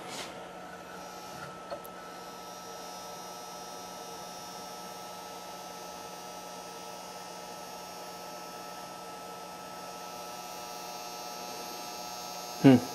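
Mains transformer humming steadily under power, a little noisy. A faint high whine joins in about two seconds in, and there is a small click just before.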